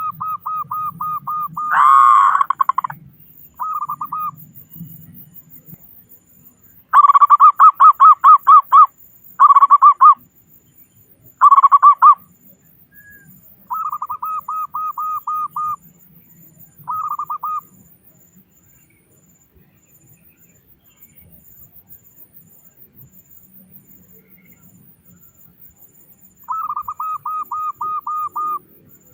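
Zebra doves (perkutut) giving their staccato cooing calls. Each call is a quick string of coos at about five a second, lasting one to two seconds. The calls come in repeated bouts, some much louder than others, with a long pause before a last call near the end.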